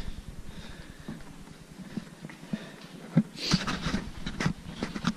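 Footsteps on a hardwood plank floor: irregular thuds at walking pace, with a short rustle about halfway through.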